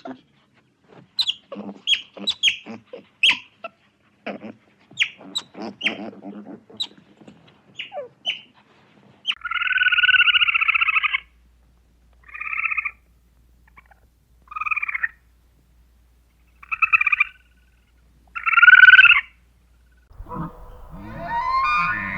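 Farmyard birds calling: a run of short, irregular calls for the first nine seconds or so, then one long call followed by four shorter calls spaced about two seconds apart. A different, denser sound begins near the end.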